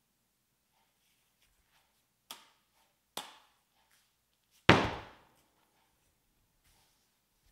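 Hollow welded sheet-steel sphere knocked three times: two light taps, then a much louder hit with a short ringing decay.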